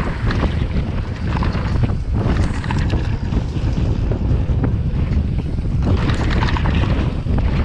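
Loud wind buffeting the microphone during a downhill mountain-bike run, a constant low rumble with irregular clatter and knocks from the bike over rough ground.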